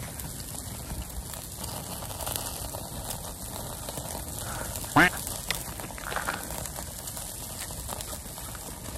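Faint steady crackle and hiss of a charcoal grill with meat skewers cooking. About five seconds in, a voice gives one short, sharply rising squeal.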